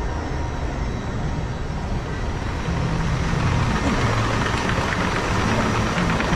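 Steady mechanical hum and water noise from a river-rapids raft ride as the round raft floats along its channel, growing louder about three seconds in.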